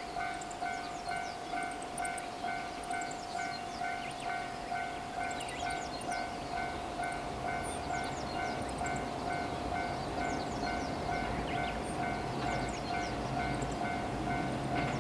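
Japanese railway level-crossing alarm ringing in an even electronic clang, about two strikes a second. The low rumble of an approaching JR West suburban electric train grows over the second half and gets louder toward the end.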